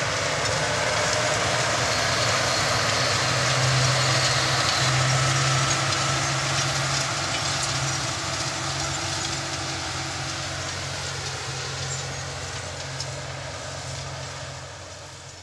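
John Deere 7530 tractor's diesel engine pulling under load, with the Kuhn Speedliner 4000 seed drill's discs and tines working the soil in a steady rushing noise. It passes close about four to five seconds in, then fades gradually as it moves away.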